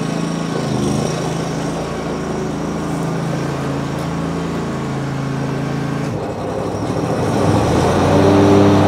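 27 hp Kohler Command Pro V-twin engine of a Snapper Pro S200XT zero-turn mower running steadily as the mower drives. Its note changes about six seconds in and grows louder near the end.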